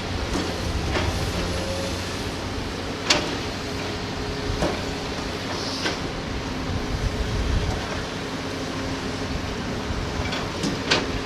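Heavy diesel engines of excavators at work, running steadily, with a few sharp knocks (the loudest about three seconds in) and a brief hiss about six seconds in.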